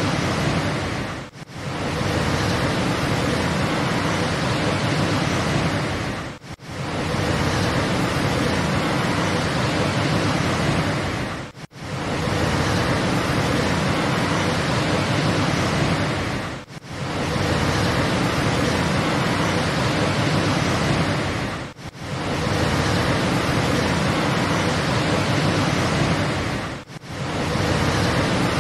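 Steady roar of a large waterfall, a dense even rush of water, cut by a brief drop-out about every five seconds.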